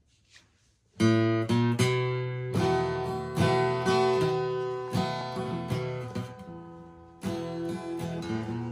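Acoustic guitar strummed in chords, playing a song's introduction; the strumming starts about a second in, with each chord ringing out between strokes.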